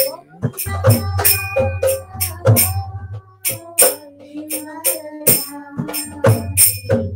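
Instrumental interlude of a kirtan: jingling percussion strikes about three times a second over sustained melody tones and a steady low drone.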